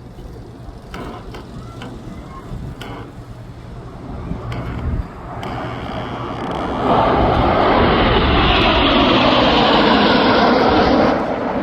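Formation of Red Arrows BAE Hawk T1 jets flying past, their engines a low rumble that builds into a loud roar about seven seconds in, then drops away sharply just before the end.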